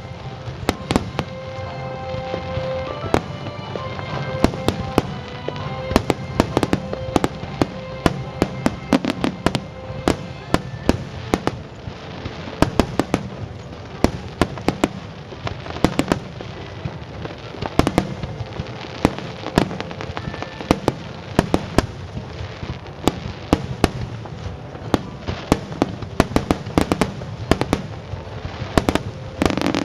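Aerial fireworks bursting in quick succession during a display's finale, with sharp bangs, often two or three a second, over a continuous rumble and crackle of further shells.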